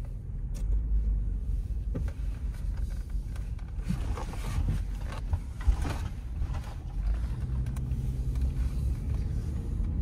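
Low rumble of a Toyota 4Runner driving slowly, heard from inside the cabin, with a few light knocks and rattles around the middle.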